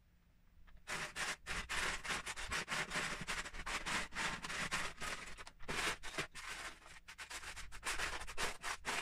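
Loose Lego bricks clattering and scraping against each other and the plastic tub as hands rummage through a tub full of pieces, starting about a second in.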